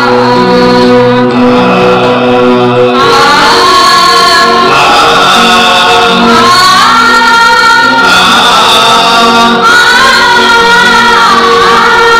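A mixed group of men and women singing a Sanskrit song together over harmonium accompaniment. The harmonium plays held notes alone at first, and the voices come in about three seconds in.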